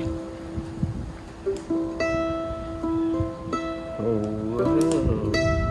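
Mandolin played slowly, a chord picked about every second and a half and left to ring. About four seconds in, a brief low wavering vocal sound comes in under the strings for about a second.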